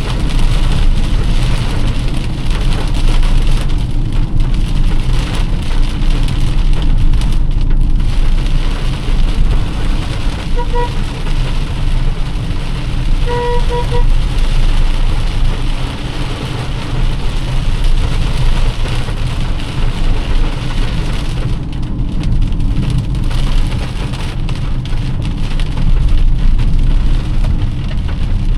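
Heavy rain falling on a moving car over a steady low rumble of engine and tyres on a wet road. Two short beeps sound about a third of the way in and again about halfway through.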